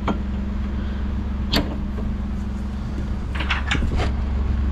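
A pickup truck running with a steady low drone, heard from inside the cab, with a few sharp clicks and knocks.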